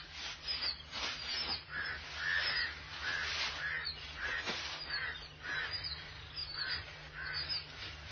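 A bird calling over and over, short calls about two a second.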